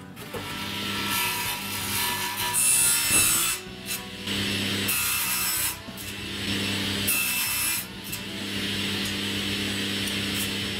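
Circular saw mounted under a table, running and cutting wood in about four passes, each a loud stretch of high-pitched sawing over a steady motor hum, with short dips between.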